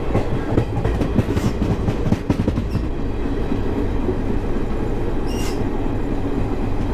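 Express passenger train running along the track, heard from on board: a steady low rumble with a run of wheel clicks over the rail joints in the first three seconds, and a brief high-pitched squeal about five and a half seconds in.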